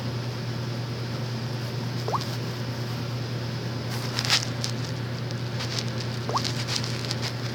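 Steady low hum over hiss, with a few faint clicks and taps, the loudest cluster about four seconds in, and two faint short squeaks.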